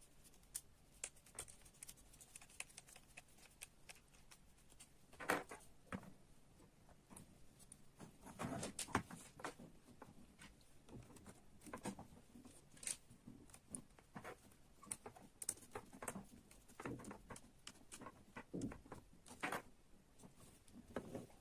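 Small parts of an excavator model kit being handled and fitted together: scattered light clicks, taps and rattles at an uneven pace, the sharpest about five seconds in.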